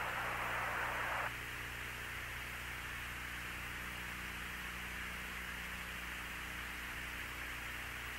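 Radio static hiss on the open mission audio channel, cutting off abruptly about a second in, leaving a steady low hiss with a constant electrical hum.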